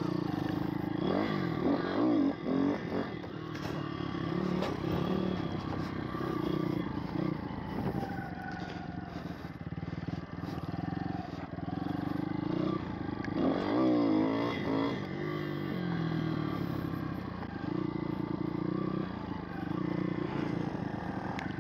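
Pit bike engine running while being ridden, its revs rising and falling as the throttle is worked. There is a sharp burst of revving about a second in and again about thirteen seconds in.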